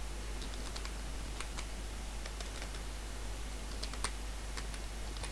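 Light, irregular keystrokes on a computer keyboard as a web address is typed, with one sharper click about four seconds in, over a steady low background hum.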